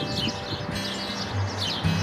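Background music with sustained notes and a low bass line, over repeated short falling bird chirps.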